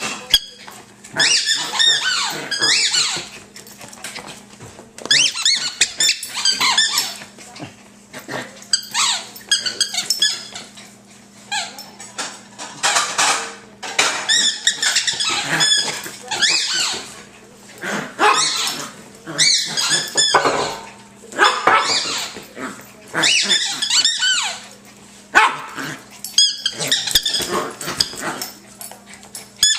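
Fox terrier puppy playing frantically with a toy: bouts of high-pitched squealing and barking, each a second or two long, coming every couple of seconds.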